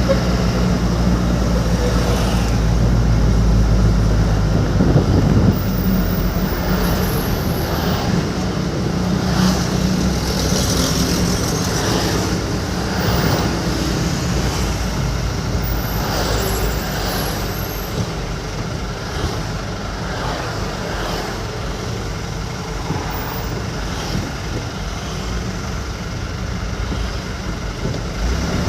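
Truck on the move in traffic: a steady engine drone with road and traffic noise. The engine is heaviest for the first five seconds or so, then eases.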